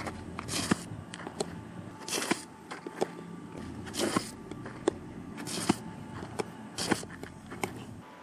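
Softballs popping into a catcher's mitt one after another during a receiving drill, about five louder catches roughly a second and a half apart, with lighter clicks and scuffs between them.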